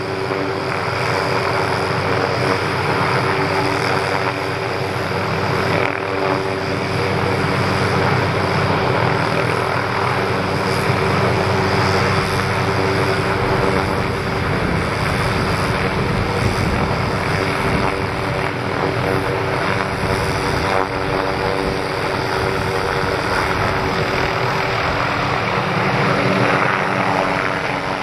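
MD 500-series light helicopter hovering close overhead, its main rotor beating steadily under a continuous engine whine.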